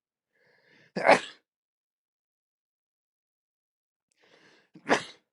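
A man sneezing twice, about four seconds apart. Each sneeze is a short, sudden burst after a brief, faint in-breath.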